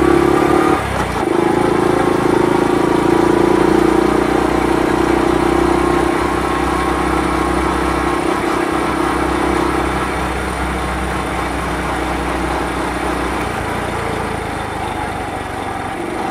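Honda Super Cub 50 (AA01, carburetted) single-cylinder four-stroke engine and exhaust running steadily on the move, with a brief dip about a second in. The engine note gets quieter and drops lower over the last few seconds.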